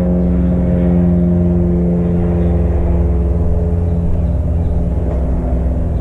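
A motor running steadily, a constant hum with a fixed pitch.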